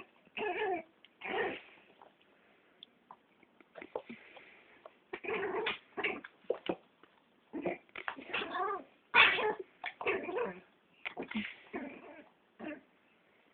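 A dog giving a string of wavering, yowl-like cries whose pitch bends up and down, each under a second, with short gaps between; the loudest comes about nine seconds in.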